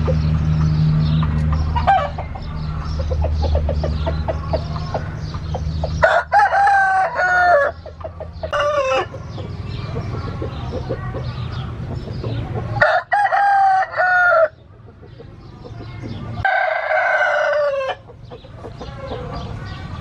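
Gamecock roosters crowing, three long crows of about a second and a half each and one short call, with clucking and other faint calls between. A steady low hum runs under the first part and fades out about halfway through.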